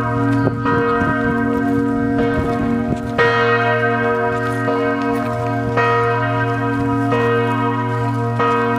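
Church bells pealing: repeated strokes every second or two, each adding a bright new ring over a deep hum that carries on between strokes.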